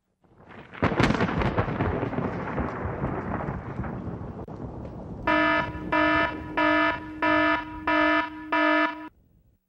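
A thunderclap crashes and rumbles away over about four seconds. Then an electronic alarm gives six buzzy beeps, about one and a half a second, and cuts off suddenly.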